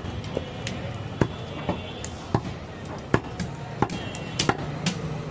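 Cleaver chopping goat meat on a wooden log chopping block: a string of sharp, irregular chops, roughly two a second.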